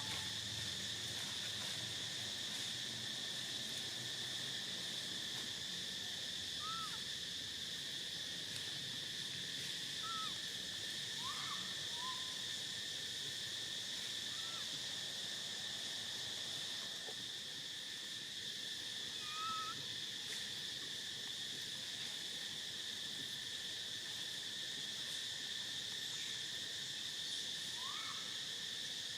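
Steady, unbroken high-pitched drone of insects, with about ten short arched chirping calls scattered through it.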